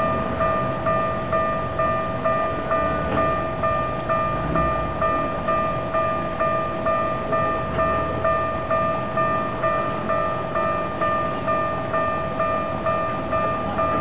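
Japanese railway level-crossing warning bell ringing steadily at about two strikes a second, each strike a clear ringing tone that fades before the next. The crossing is signalling that a train is approaching and the barriers are down.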